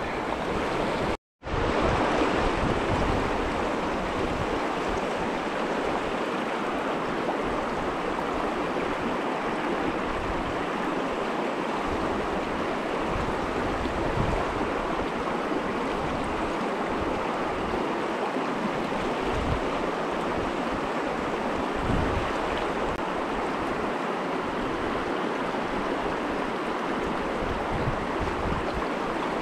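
Steady rushing of a mountain stream's flowing water, broken by a moment of silence about a second in.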